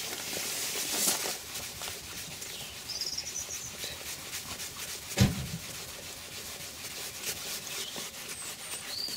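Cotton cloth buffing a leather door panel: repeated soft rubbing strokes. A single thump, the loudest sound, comes a little past halfway.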